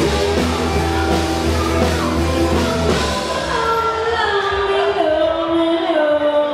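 Live rock band playing, with a female lead singer over drums and bass guitar. About three seconds in, the bass and cymbals drop out and the voice carries on over sparse backing.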